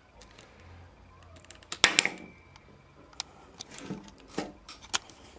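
A Lego Bionicle shadow leech sphere launcher fires with one sharp snap about two seconds in, followed by a few lighter plastic clicks and knocks.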